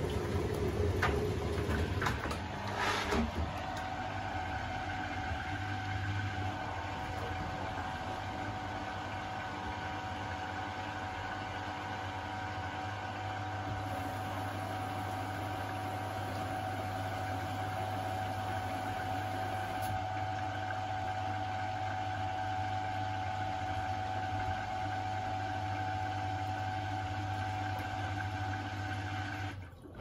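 Beko WTK104121A washing machine starting its final spin: a steady low hum with a constant motor whine over it as the drum turns the wet laundry, with the drain pump pumping out. A few light rattles come in the first seconds, and the sound cuts off just before the end.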